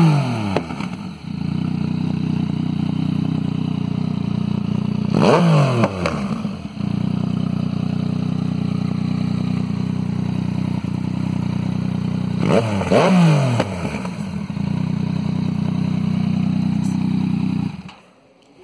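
Yamaha MT-09's three-cylinder engine idling through an aftermarket Hurricane sport exhaust, blipped twice, about five and thirteen seconds in, each rev climbing quickly and dropping back to idle. The engine sound stops suddenly near the end.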